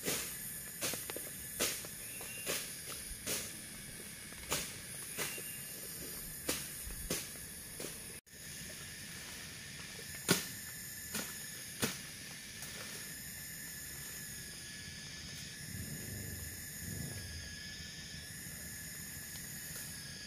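Machete chopping through jungle undergrowth: a run of sharp strokes, roughly one or two a second, ending about twelve seconds in. A steady high hiss runs underneath.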